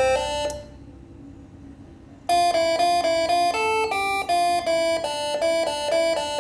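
Six-trumpet telolet horn set, switched by a 24-volt electronic module, playing a quick melody of several horn notes sounding together and changing every few tenths of a second. The tune cuts off about half a second in, and after a pause of nearly two seconds another tune starts.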